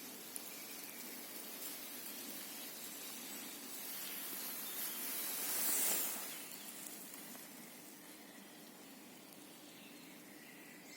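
Outdoor noise hiss that swells to a peak about six seconds in, then fades again.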